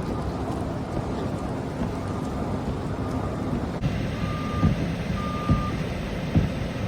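A truck's reversing alarm beeping at a steady high pitch, about one half-second beep a second, over a low engine rumble.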